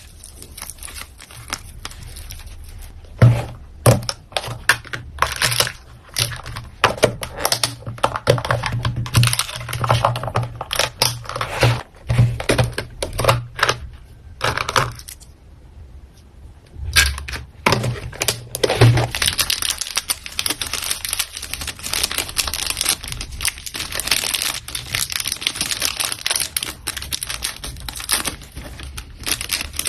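Hands packing an order: plastic packaging crinkling and rustling, with tearing and a rapid run of small clicks and taps. A low hum comes and goes through the first two-thirds, and there is a brief quieter pause just past the middle.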